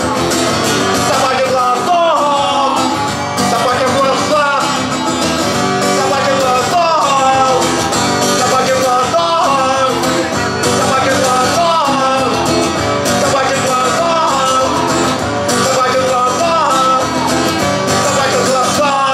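Live song: a strummed acoustic guitar with a man singing over it at the microphone.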